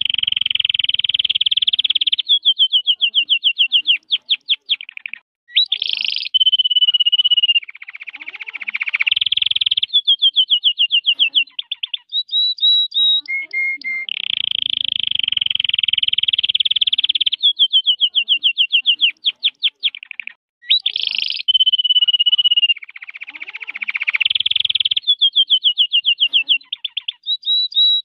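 Red-factor canary singing: long rolling trills and fast runs of repeated notes, joined by a steady whistled note and short high notes. The same sequence of phrases comes round again about every 14 seconds.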